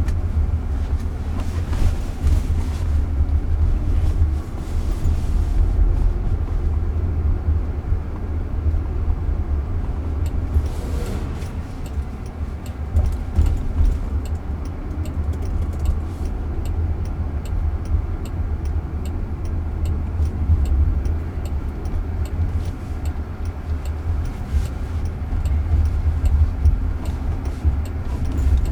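Steady low rumble of road and tyre noise inside a moving car's cabin. A faint, regular ticking joins in about halfway through.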